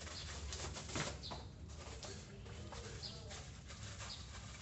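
Scissors snipping and plastic packaging crackling as a wrapped parcel is cut open, a sharper snip about a second in, with a bird cooing in the background.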